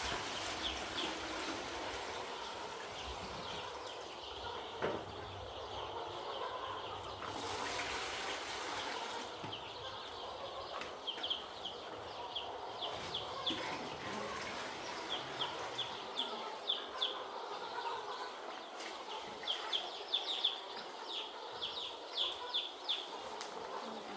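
Young chicks peeping: short high cheeps in quick runs, thickening from about ten seconds in, over a steady background hiss. A brief rush of noise about seven seconds in.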